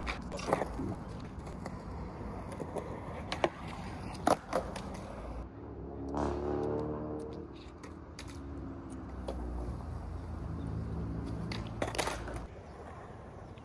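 Skateboard on a concrete skatepark ledge: wheels rolling and the board clacking, the sharpest clacks about three and a half and four seconds in. From about halfway a steady low hum with a pitch runs for several seconds, with another clack or two near the end.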